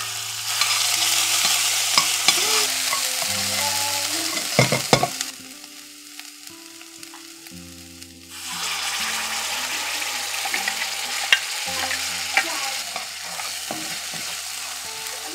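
Spinach purée sizzling in a hot stainless steel kadai while a metal spatula stirs it, with a few scrapes and taps of the spatula against the pan. The sizzle drops away for about three seconds midway, then comes back.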